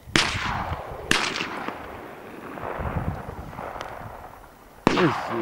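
Shotgun shots at a duck hunt: two shots about a second apart, each trailing a long rolling echo, then a third shot near the end.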